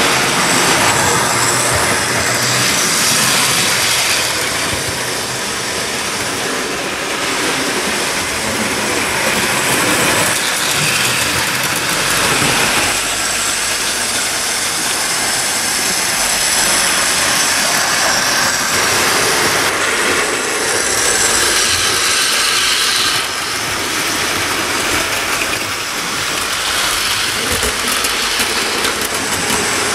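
OO gauge model trains running along the track: a steady whirring and rolling noise from the locomotives' electric motors and wheels on the rails, shifting in level every few seconds.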